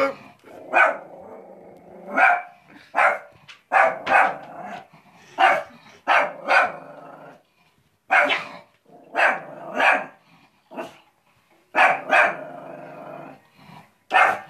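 A shih-tzu barking over and over, about fifteen sharp barks, growling in between: she is barking at her own reflection in a mirror.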